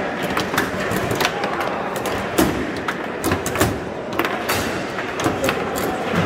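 Foosball play: irregular sharp knocks and clacks as the ball is struck by the plastic player figures and bounces off the table walls, over a steady background murmur.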